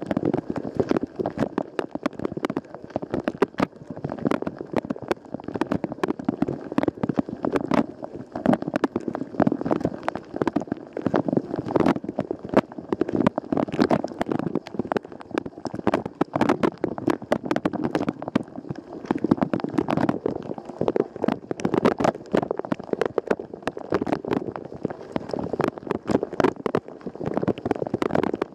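Water from the spray arms of a Rosenlew dishwasher pelting the inside of the tub and the camera mid-wash, a dense, unbroken patter of splashes like heavy rain.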